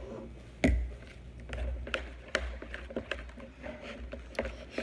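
Spoon stirring a glue, shaving-cream and Tide slime mixture in a bowl: a sharp knock just under a second in, then irregular clicks and taps of the spoon with wet squishing.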